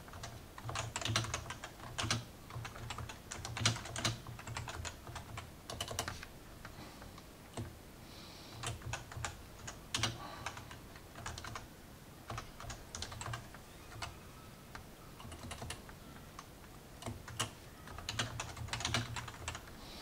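Typing on a Topre Realforce 104UB keyboard with Topre electrostatic capacitive switches, fitted with new keycaps: irregular runs of soft keystrokes broken by short pauses. Every key sounds the same, with no scratching.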